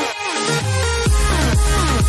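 Electronic dance music with a steady beat of deep kick drums about twice a second. The bass drops out briefly at the start and comes back in about a second in.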